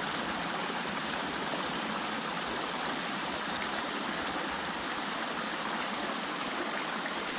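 Small mountain stream running over rocks: a steady, even rush of flowing water.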